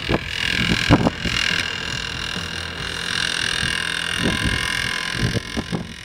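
Handheld electric orbital car polisher running steadily with a motor whine as its pad buffs painted door panels.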